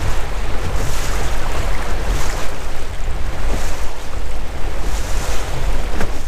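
Motorboat underway at trolling speed, about 3.5 miles an hour: a steady low engine drone under loud, rushing wind noise on the microphone and water washing past the hull.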